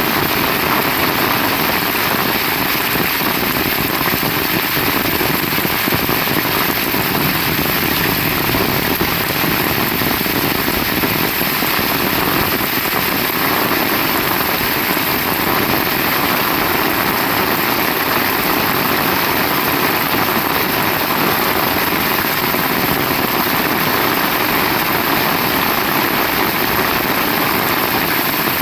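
Heavy rain falling steadily in a loud, even hiss.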